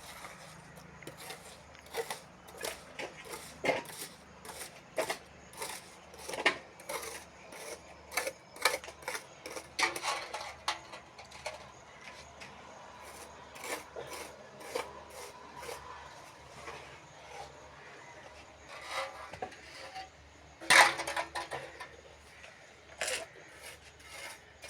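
Irregular knocks and clinks of broken brick pieces being scooped up, handled and dropped, with one louder knock near the end.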